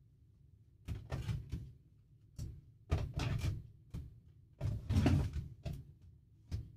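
A series of short scraping and rustling strokes from craft materials being handled, about eight in all, the longer ones lasting about half a second.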